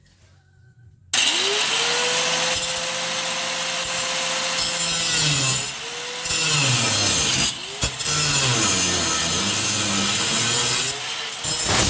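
Angle grinder starting about a second in, spinning up with a rising whine and cutting into rusted steel. Its pitch sags and recovers as the disc loads and unloads, with a few brief breaks in the cut.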